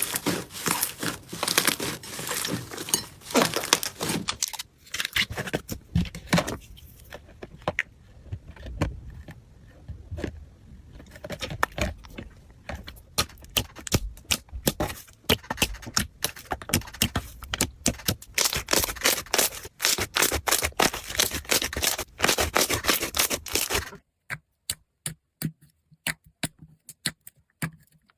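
Crunchy slime being squeezed and poked, a dense run of crackling, popping clicks that eases off for a few seconds in the middle and then picks up again. Near the end it breaks into single sharp clicks with silence between them.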